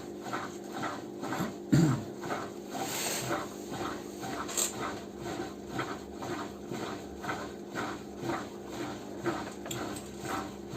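Small abrasive stone scraped back and forth on the commutator of a washing machine motor's armature, an even rasping rhythm of about two strokes a second over a steady low hum.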